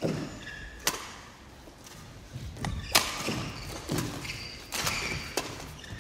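Badminton rally: sharp racket strikes on the shuttlecock every second or two, with players' footfalls and brief shoe squeaks on the court floor between the hits.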